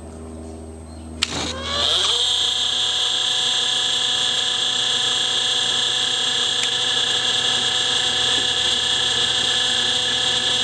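Leaf blower serving as the air starter of a homebuilt turbojet: a click about a second in, a quick rising whine, then a loud steady high-pitched whine that holds.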